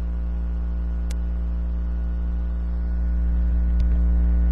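Steady electrical mains hum with a buzz of evenly spaced overtones, and one short click about a second in.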